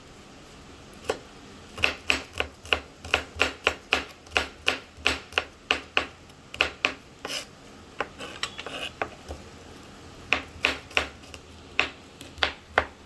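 Knife chopping garlic on a cutting board: a run of sharp taps, two to three a second, with a pause of a few seconds in the middle.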